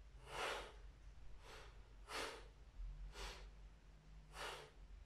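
A man breathing hard from the exertion of holding an abdominal hold, with five short, forceful breaths about one a second.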